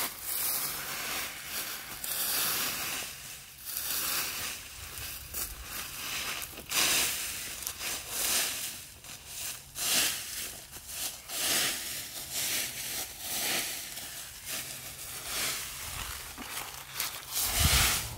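Footsteps and shuffling in dry fallen leaves: irregular crunching and rustling as a person walks and moves about.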